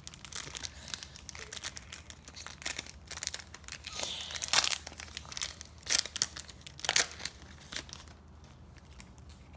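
Foil Match Attax trading-card pack being torn open and crinkled by hand, in irregular crackling rustles with sharp tears about four and a half, six and seven seconds in.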